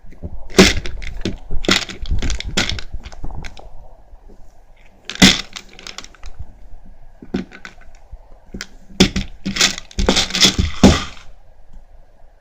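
A child's hands banging on a tabletop in an irregular drumming rhythm: sharp knocks in bursts, some struck in quick runs, with short pauses between.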